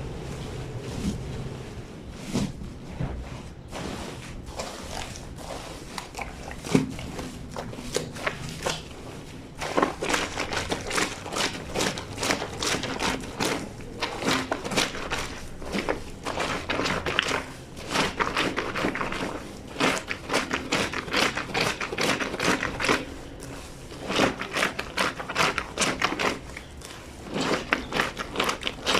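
A wet, soapy blanket being scrubbed and kneaded by hand on a lavadero's ribbed washboard, with squelching, crackly rubbing. It is fairly subdued at first, then from about ten seconds in comes in quick rapid bursts of scrubbing strokes.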